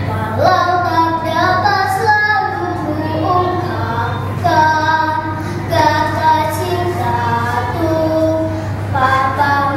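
A young girl singing solo, holding long notes that step and slide between pitches, with a rising swoop on a note just after the start. A steady low hum runs underneath.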